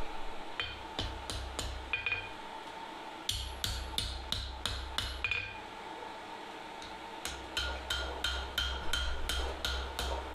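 Hand hammer striking hot steel on an anvil in quick, even blows, each with a short metallic ring, in three runs with brief pauses between them: blending and planishing the forged steel. A steady faint hum runs underneath.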